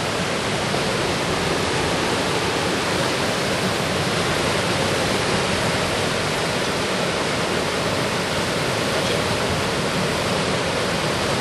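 Fast-flowing river water rushing steadily, a loud, even noise that does not change.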